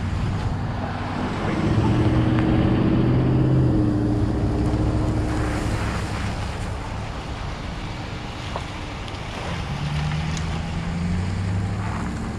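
A motor vehicle's engine running, its pitch shifting a few times, with wind on the microphone.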